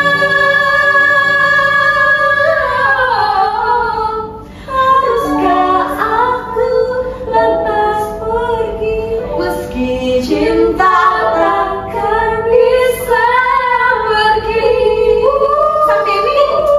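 Women singing a song karaoke-style over a backing track, opening on a long held note.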